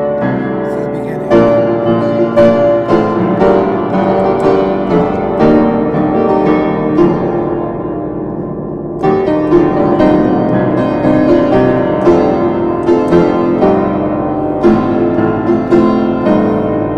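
Piano playing chords, with notes struck in a steady flowing pattern; the playing softens briefly about halfway through, then a new phrase starts.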